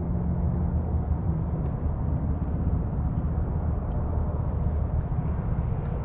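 Small boat motor running at a steady speed, a low rumble, as the boat moves to a new fishing spot; a faint hum in it fades out about a second and a half in.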